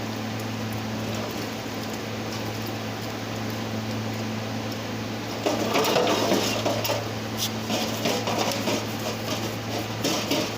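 Hand-cleaning a Ford Ranger EGR valve: a tool scrapes and clicks against the metal, getting louder about five seconds in, over a steady low hum.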